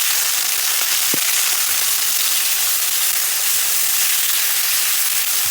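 Sliced chicken sizzling loudly in hot oil in a pan with garlic and red chili, a steady hiss with a single sharp crackle about a second in.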